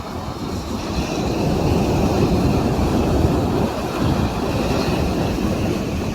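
Sea waves breaking and washing up the beach, a swell of surf building about a second in and then easing.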